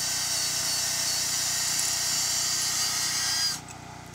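Power drill running steadily, boring pilot holes for lag bolts into the wooden stair frame; the sound cuts off sharply about three and a half seconds in.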